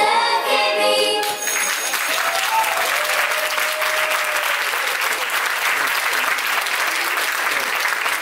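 Recorded song music cuts off about a second in, then an audience applauds steadily.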